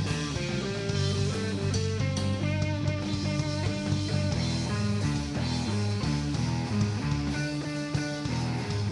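Live band playing ska, with electric guitar and drum kit.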